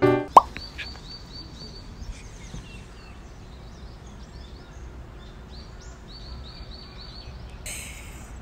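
Small birds chirping outside, in runs of quick, high repeated chirps over faint outdoor background. A short rustle comes near the end.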